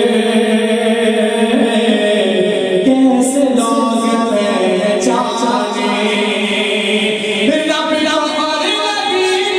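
A man's voice singing an Urdu naat, a devotional poem, in long drawn-out melodic lines.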